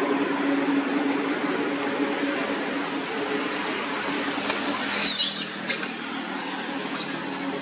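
Outdoor forest ambience: a steady high insect drone over a low steady hum. About five seconds in come a few short, high, squeaky chirping calls, with one more near the end.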